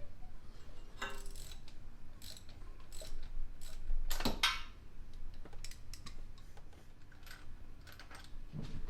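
Hand tools working on an engine bay: scattered ratchet-like clicks and small metallic knocks, with one louder knock about four seconds in.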